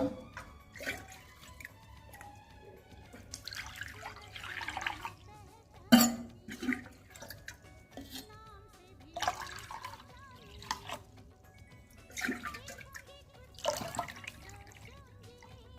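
Water splashing in several short spells a few seconds apart while a container is rinsed by hand, with a sharp knock about six seconds in.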